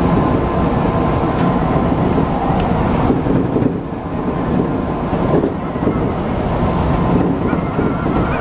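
Odakyu 1000 series electric train running at speed, heard inside the front car behind the cab: a steady rumble of wheels on rail with a faint steady hum. A higher wavering whine comes in near the end.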